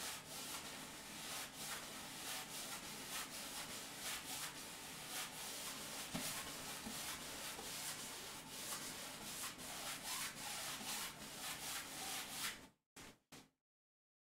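A paintbrush scrubbing green paint onto a canvas, a dry scratchy rubbing in rapid repeated strokes. It cuts off sharply near the end.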